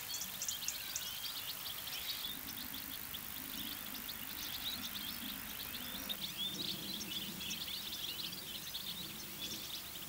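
A flock of European goldfinches twittering together: many quick, overlapping chirps and short trills all the way through, over a low steady background noise.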